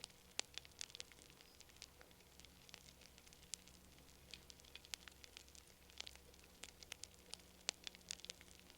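Campfire crackling: irregular sharp snaps and pops, several a second, some louder than others.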